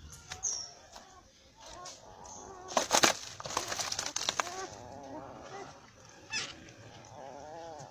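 A sack rustling and crackling as it is handled, loudest about three seconds in, with a young animal's short wavering cries around five seconds in and again near the end.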